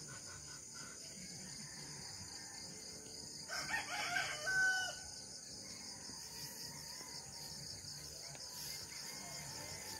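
A rooster crows once, about three and a half seconds in, over a steady high chirring of insects.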